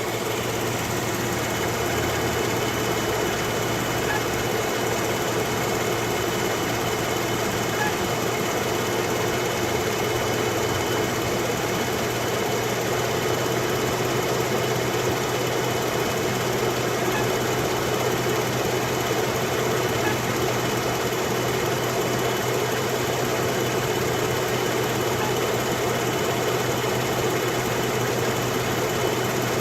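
2013 Jeep Wrangler's 3.6-litre V6 idling steadily, with a constant squeal from a failing water pump.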